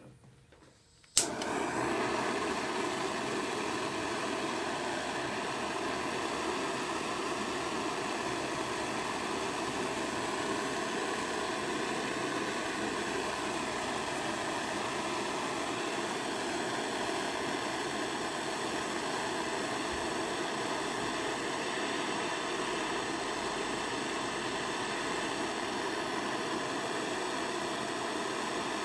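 Butane-propane torch burning with a steady rushing roar, starting suddenly about a second in, as it heats cast aluminium crankcase for a low-temperature aluminium rod repair.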